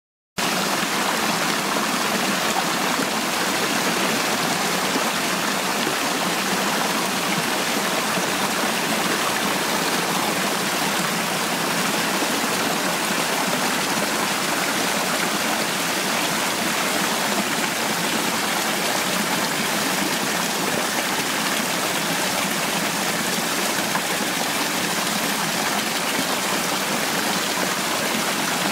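Fountain water pouring from small stone spouts in a mossy wall into a channel, a steady splashing rush. It starts abruptly just after the beginning.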